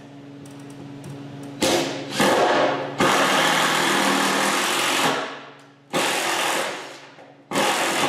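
Cordless DeWalt driver running in five bursts, about half a second to two seconds each with short pauses between, as it sinks screws through wooden planks into a workbench frame.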